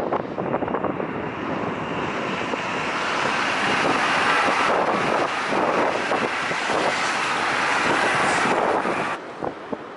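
Frecciarossa 1000 (ETR 400) high-speed electric train passing: a dense rushing of wheels on rail and air around the train that swells to its loudest midway, then cuts off suddenly near the end.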